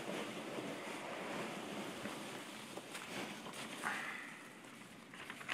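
Hands digging through a cardboard box of polystyrene packing peanuts: a steady rustling that eases off after about three seconds. A sheet of paper is pulled out of the peanuts near the end.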